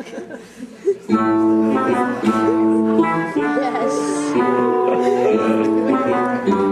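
Instrumental music starts about a second in: a run of held notes, the pitch changing every half second or so, with a few voices faintly underneath.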